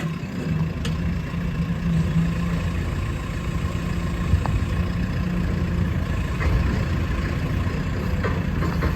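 Diesel engine of a JCB 3CX backhoe loader idling steadily.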